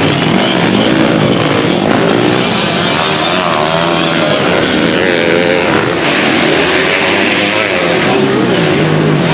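Two-stroke Kawasaki Ninja 150 race motorcycle engine revving loudly, its pitch rising and falling again and again.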